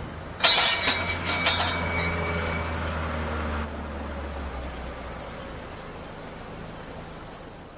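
Heavy iron gates swinging open with a sudden metallic clang and screech about half a second in, followed by a low rumble that slowly fades.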